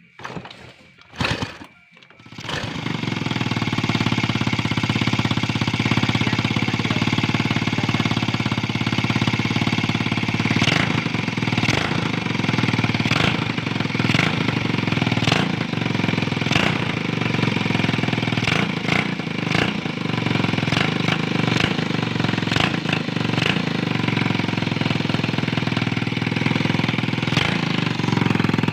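Old motorcycle engine catching after a couple of short starting attempts and then running steadily with a fast, rattling beat.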